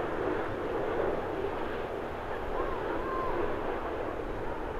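Boeing 787-8 Dreamliner airliner on final approach, its jet engines giving a steady rushing noise.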